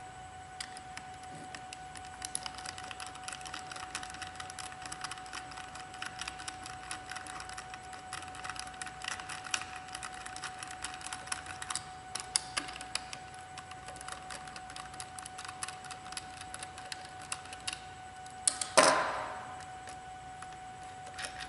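Small irregular clicks and scrapes of a hex screwdriver turning 2.5 mm Allen screws out of a plastic tool housing, over a faint steady tone. One louder knock comes near the end.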